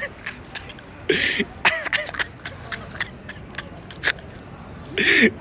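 A person coughing twice, about a second in and again near the end, among short bits of voice and sharp clicks.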